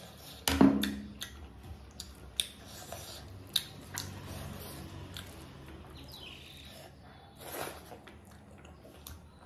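Close-up eating sounds: a sudden loud knock about half a second in, likely the gravy bowl set down on the table, then rice and gravy mixed by hand and chewed, with many small wet clicks.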